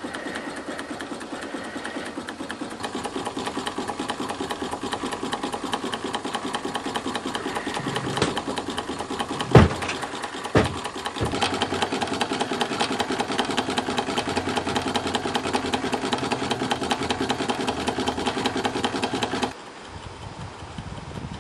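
Bowman M122 toy steam engine, driven by compressed air instead of live steam, ticking over with a fast, even beat. There are two sharp thumps about halfway through, and the running drops in level near the end.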